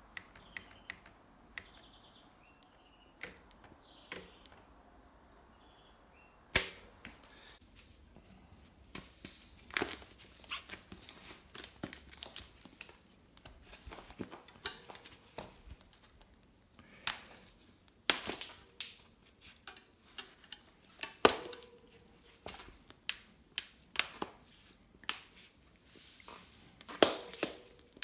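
A bicycle tyre being worked by hand along a wheel rim, its bead snapping and clicking against the rim edge in irregular sharp snaps, a few much louder than the rest. The snapping starts about six seconds in.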